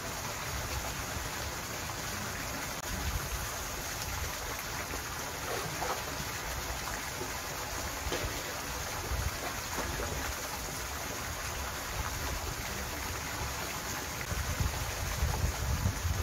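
Steady rushing, water-like noise with low wind buffeting on the microphone. Near the end it gets louder and more uneven as water splashes at the surface close to the bank.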